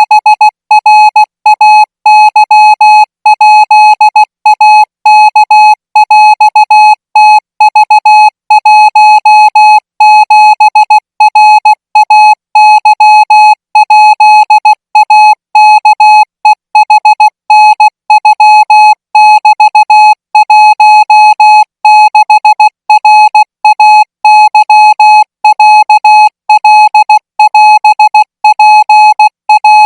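Thai Morse code practice signal at 20 words per minute: a single high-pitched beep keyed on and off in short dots and longer dashes, with brief gaps between characters.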